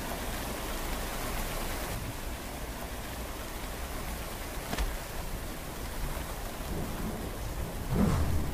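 Steady rain falling, a continuous even hiss. About eight seconds in comes a low rumble, the loudest moment.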